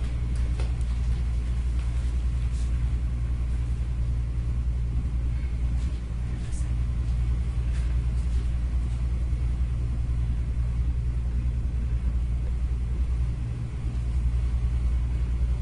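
A steady low rumble, even throughout, with a few faint light ticks over it.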